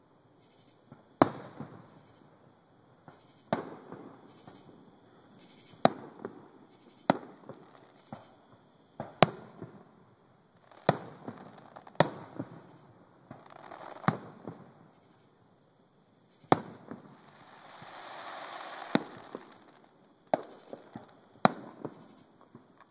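Aerial fireworks bursting overhead: about a dozen sharp bangs, one every second or two, each with a short rumbling tail, and a hissing swell that builds about three-quarters of the way through.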